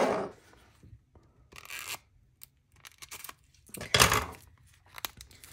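Plastic packaging around a sticker pack being handled and cut open with scissors: a few short crinkling, scraping bursts, the loudest about four seconds in.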